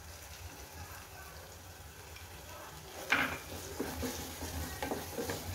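A wooden spatula stirring thick onion-tomato masala in a stainless steel pot: about three seconds in, repeated scrapes and light knocks against the pot start. A low steady hum lies underneath.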